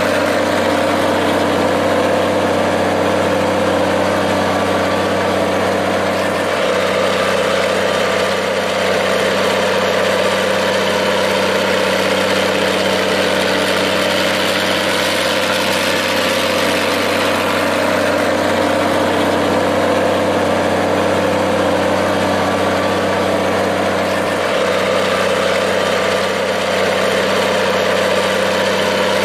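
Minneapolis-Moline G-1350 tractor engine idling steadily at an even, unchanging speed.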